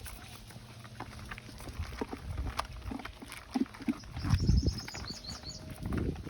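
Stray dogs eating and jostling: scattered knocks and low thuds, a louder low rumble about four seconds in, and a quick run of short high chirps just after it.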